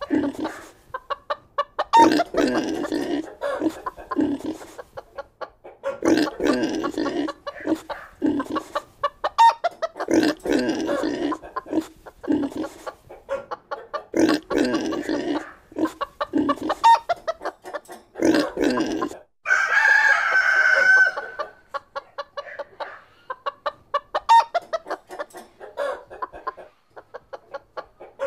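Chickens clucking in repeated bursts every couple of seconds, with a rooster crowing once about twenty seconds in.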